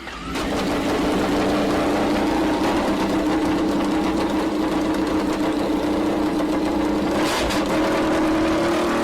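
MotoGP racing motorcycle engine idling steadily at an even pitch, with a brief burst of noise about seven seconds in.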